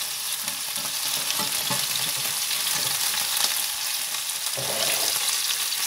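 Marinated, boiled chicken pieces sizzling steadily as they brown in a frying pan, the stage after simmering in the marinade. A few light clicks of metal tongs turning the pieces.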